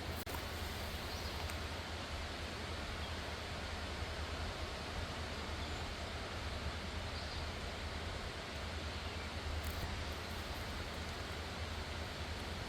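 Steady rushing of a mountain stream: an even hiss with a low rumble underneath.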